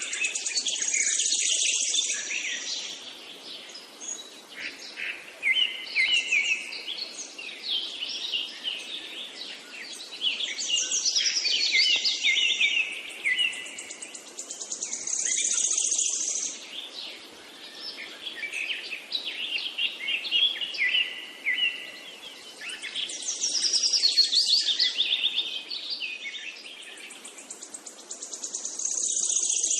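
Songbirds chirping and trilling in dense, high-pitched bursts that come back every few seconds, over a faint steady background hiss.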